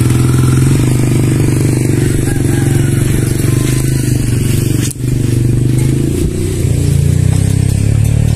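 Motorcycle engine running steadily at idle, with a single short knock about five seconds in.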